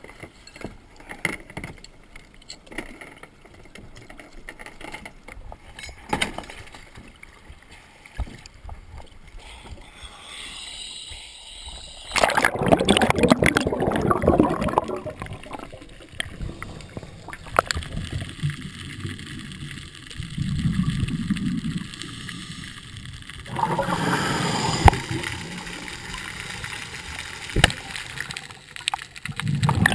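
Scattered clinks and knocks of an anchor chain and gear being handled on a plastic kayak. Then, about twelve seconds in, comes muffled underwater sound through a camera housing, with loud gurgling bursts of a scuba diver's exhaled bubbles that come back every several seconds.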